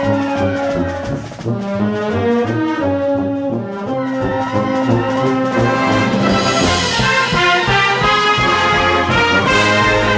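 Military band music led by brass, trombones and trumpets prominent, playing sustained and moving lines, with two cymbal crashes in the second half.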